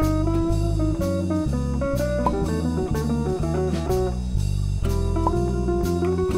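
Instrumental background music: a guitar-led tune over a moving bass line, with a steady drum beat.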